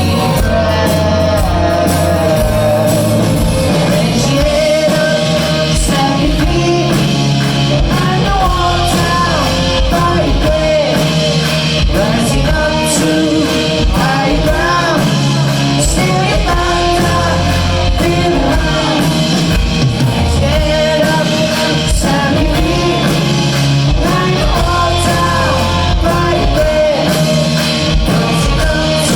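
Live psychedelic rock band playing loudly in a hall, with a sung vocal over electric guitars, bass and drums.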